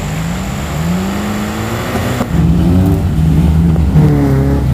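Off-road 4x4 engine revving under load, its pitch rising twice, then changing abruptly about two seconds in to a louder, lower, rougher engine sound.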